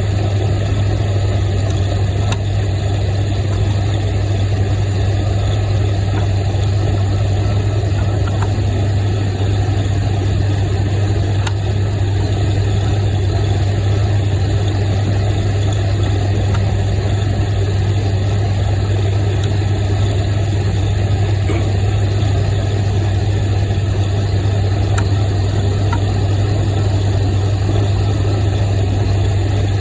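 A steady, unchanging low mechanical hum, like an engine running at idle, with a few faint clicks scattered through it.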